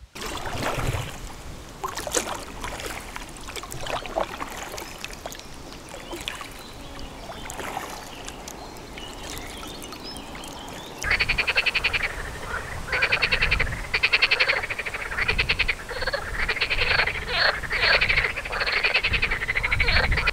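Frogs croaking: runs of rapid pulsed calls, one after another, starting about halfway through. Before that, scattered clicks and rustles.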